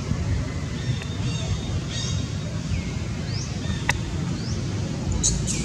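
Outdoor ambience: a steady low rumble with small birds chirping, short rising calls every half second or so, and a few quick falling calls near the end. A single sharp click about four seconds in.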